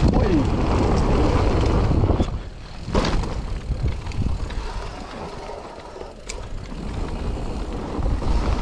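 Mountain bike riding down a dirt trail: wind buffeting the microphone and tyres rumbling over the ground, loudest for the first two seconds, with a sharp knock about three seconds in and a lighter one about six seconds in.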